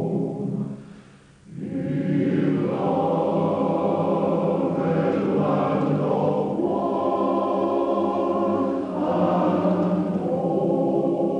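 A choir singing slow, held chords, with a short break about a second in before the singing resumes.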